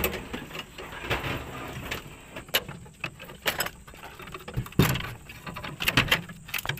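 Scattered metallic clinks and knocks of hand tools and parts being worked loose from an old car's engine bay, irregular, with a few sharper knocks in the second half.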